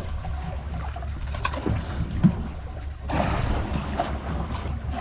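Wind on the microphone over a steady low rumble aboard a small fishing boat at sea, with a few light knocks and one louder thump about two seconds in. The rush of noise grows louder from about three seconds in.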